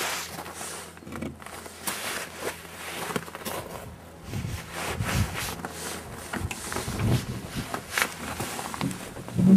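Footsteps crunching in snow, with camera-handling rustle and scattered knocks, and a heavier thump near the end.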